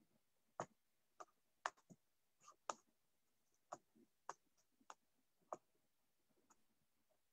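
About ten short, sharp clicks at uneven intervals over roughly five seconds, over near silence.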